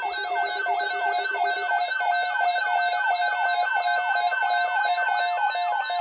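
Several weather alert radios sounding their alarms at once, triggered by an incoming weather service alert. Overlapping, rapidly repeating electronic chirps and warbling tones, with a steady tone joining partway through.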